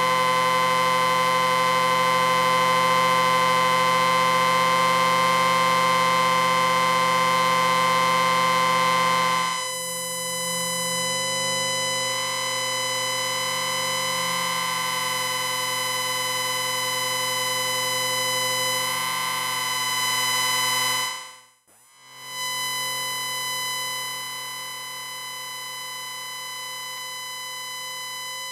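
Steady electronic whine from an audio amplifier, a stack of constant tones at several pitches at once. Its tone changes about nine seconds in, it cuts out for a moment a little past twenty seconds, then goes on quieter.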